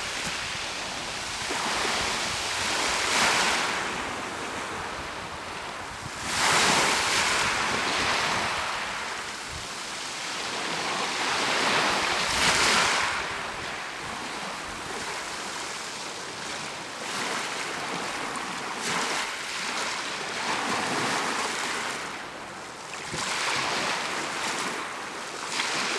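Mediterranean Sea waves breaking and washing on the shore, surging louder every few seconds, with wind on the microphone.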